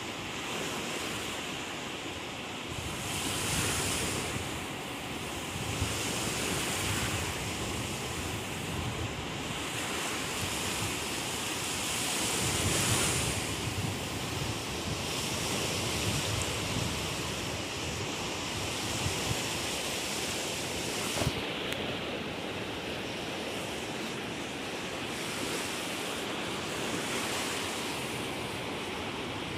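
Small waves breaking and washing over a shallow, rocky beach, a steady rushing with louder surges about four seconds in and near the middle, while wind buffets the microphone.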